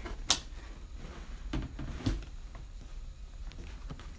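Cardboard box lid being lifted open: a sharp snap of cardboard near the start, then a few softer knocks and rustles of the cardboard and packaging.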